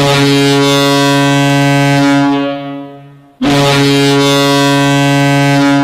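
Hockey arena goal horn, the Boston Bruins' horn, sounding two long, deep, steady blasts. Each lasts about two seconds and fades out over about a second, with a short gap before the next, signalling a goal.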